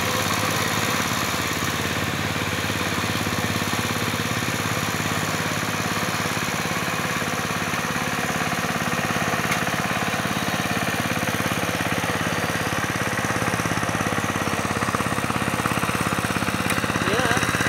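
Two-wheel walking tractor's single-cylinder diesel engine running steadily under load as it churns through a flooded paddy field, with an even, unchanging beat.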